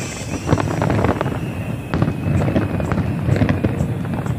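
Fireworks going off in quick succession: many sharp bangs and crackles packed close together.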